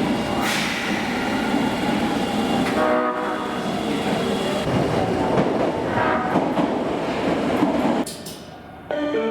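Osaka Metro 22 series subway train sounding its horn, which has an abnormal, off-sounding tone, over the noise of the train running on the rails. The train sound drops away about 8 seconds in.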